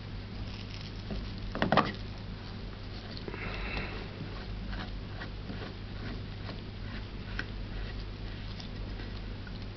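Handling noise from a plastic LED screw-in bulb with a rotating head being turned: a quick cluster of sharp plastic clicks about two seconds in, a short scraping rustle a little later, then scattered light clicks, over a low steady hum.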